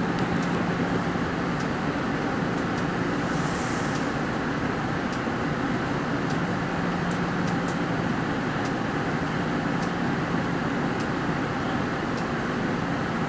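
Inside an MBTA Green Line light-rail car running on the rails: a steady rumble and hum, light scattered ticks, and a brief high hiss about three and a half seconds in.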